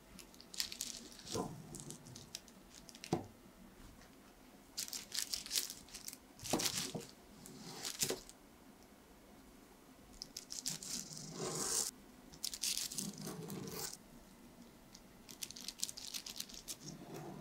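A long knife sawing through a cream-filled chocolate sponge cake in four bouts of strokes, with a rasping, crinkling sound from the crust and the paper sheet beneath and a few sharp knocks of the blade.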